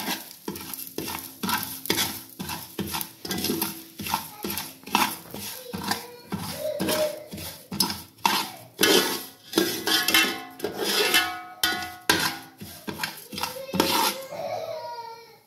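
Steel spoon scraping and clinking against a metal pot in repeated strokes, about two a second, as pounded rice is stirred and fried in ghee until it starts to brown.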